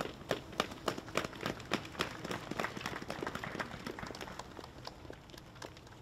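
Small crowd applauding, the separate hand claps distinct, thinning out over the last couple of seconds.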